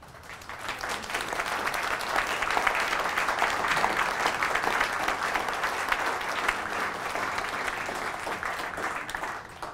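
Audience applauding, swelling over the first couple of seconds, holding steady, then dying away near the end.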